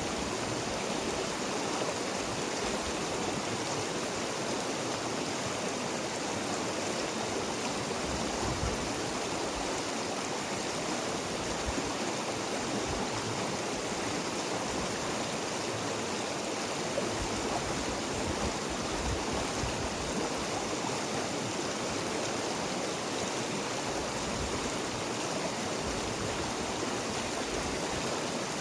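River water flowing steadily: an even rush with small, brief low gurgles underneath.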